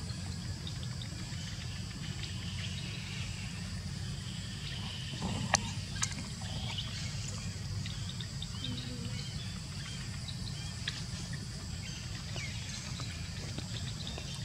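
Outdoor background noise: a steady low rumble under a constant faint high whine, with two sharp clicks about five and a half and six seconds in.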